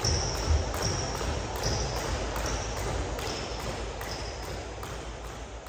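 Jump rope turning and slapping the floor in a steady rhythm, about two or three strikes a second, with a high ping about every second turn. The sound fades gradually.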